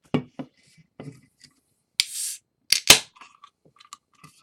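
A 16-ounce beer can being opened: a few light handling clicks, then a short hiss as the pull tab cracks the lid about two seconds in. Two sharp metallic clacks follow just after, the loudest sounds, then faint small clicks.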